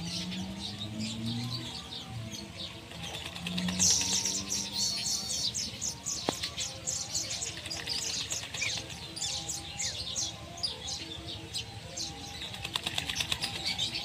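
Whistling ducks bathing in shallow water, flapping their wings and splashing, with a dense run of quick splashes and wing-beats from about four seconds in.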